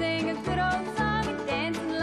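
Old-time country string band playing an up-tempo instrumental break: banjo, fiddle, guitar and hammered dulcimer over a steady bass on every beat.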